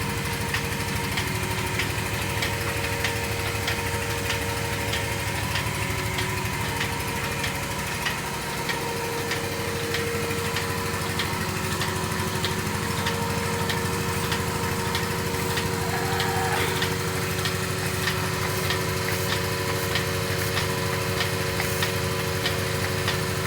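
Bucket milking machine running steadily during milking: its vacuum pump motor hums with a faint regular clicking.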